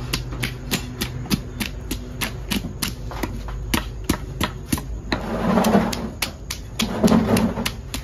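Large knife scraping scales off a parrotfish on a wooden block: quick rhythmic strokes, about four sharp clicks a second, with two longer, louder rasping passes in the second half.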